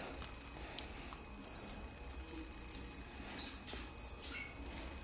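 A young white canary chick giving several short, high begging peeps while it is hand-fed from a syringe.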